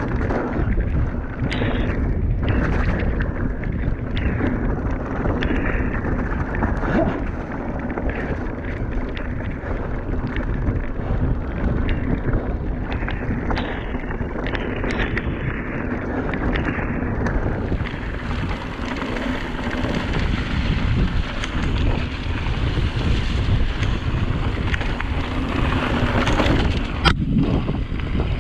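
Wind buffeting an action camera's microphone and tyres rumbling over a dirt trail as a mountain bike descends at speed, with repeated rattles and knocks from the bike over bumps. There is a brief break near the end.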